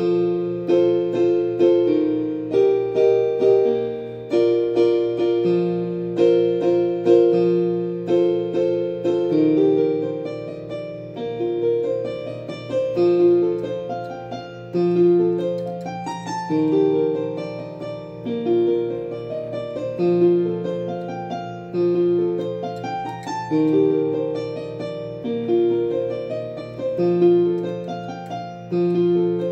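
Solo piano playing a gentle melody over held bass notes. For the first several seconds it plays quick, evenly repeated notes, then it settles into a slower, stepping melodic line.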